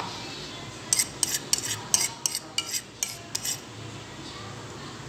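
A metal utensil clinking against a cooking pan: about ten quick, irregular knocks over roughly two and a half seconds, starting about a second in.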